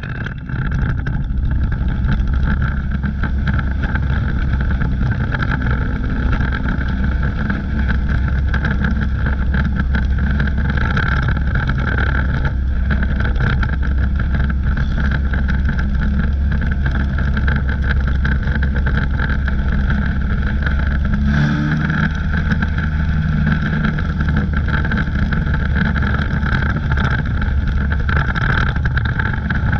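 A race car's engine running hard, heard from inside the cockpit: a dense, steady drone with rattle and wind noise. The engine note changes about two-thirds of the way through.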